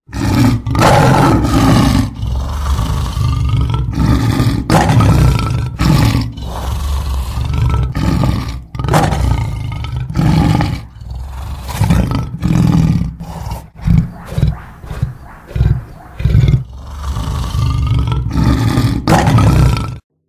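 Big cat roaring repeatedly: long roars with short pauses, a run of shorter grunting calls in the middle, then more long roars that cut off suddenly near the end.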